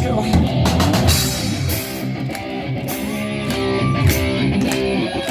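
Rock music with guitar and a drum kit playing, held guitar notes over a steady drum beat.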